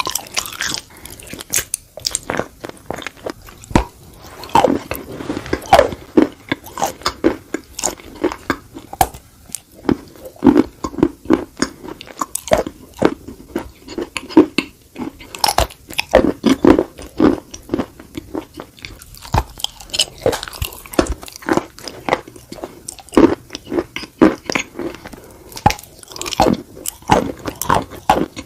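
Close-miked biting and crunchy chewing of dry edible clay chunks (khawa clay): a dense, irregular run of sharp crackles and crunches with short pauses between bites.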